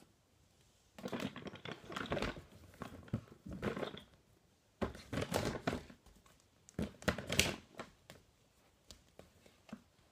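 Rustling handling noise of a fleece blanket moving right against the phone's microphone. It comes in three spells starting about a second in, the last ending after about seven and a half seconds.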